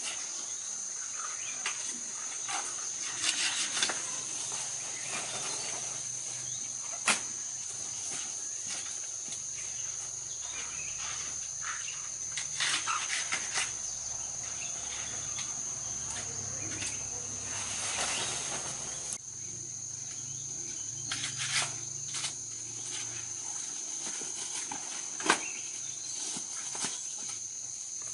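Steady high-pitched drone of insects, with scattered clicks and rustling and a couple of sharp knocks.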